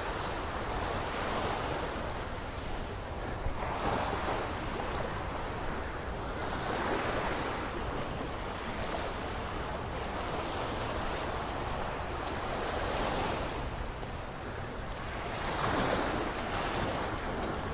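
Ocean surf washing onto the beach, swelling louder every few seconds, with wind rumbling on the microphone.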